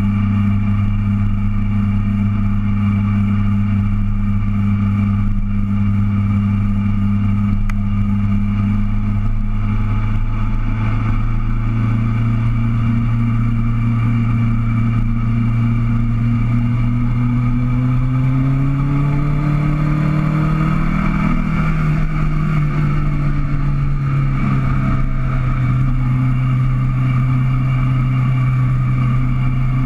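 Sport-touring motorcycle engine running at a steady cruise, a continuous drone. About two-thirds through the revs climb for a few seconds as it accelerates, then ease off slightly and hold at a somewhat higher pitch.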